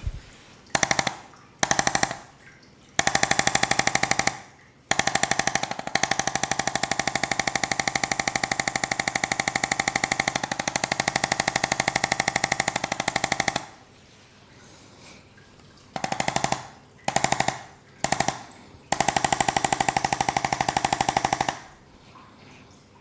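Handheld electric percussion massage gun running, a rapid, even machine-like hammering buzz. It comes in repeated runs: several short bursts and one long stretch of about eight seconds, starting and stopping abruptly.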